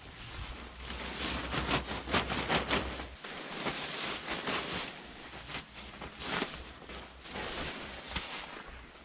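Crinkly rustling of a Tyvek protective suit being handled, in short irregular rustles. A low hum runs underneath and stops about three seconds in.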